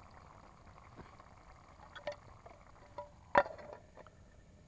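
Cooking utensils being handled: a few light knocks and clinks, then a louder metallic clank about three and a half seconds in that rings briefly.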